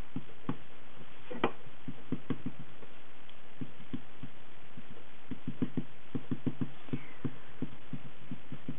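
A small ink pad dabbed again and again onto a clear stamp on an acrylic block: a run of soft taps, quickest in the second half, over a steady hiss.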